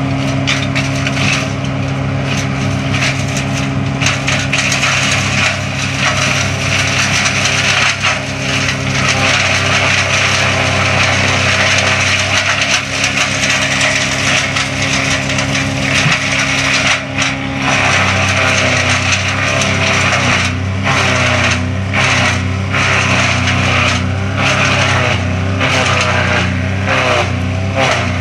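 Bugnot BVE 55 diesel branch chipper running steadily while pine branches are fed in and chipped, with cracking and crunching of wood. In the second half the chipping gets busier and the engine note wavers as the branches go through.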